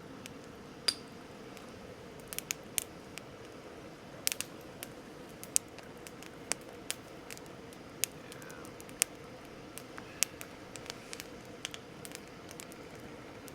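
Campfire burning with a steady low hiss and irregular sharp pops and cracks from the burning wood, roughly one a second.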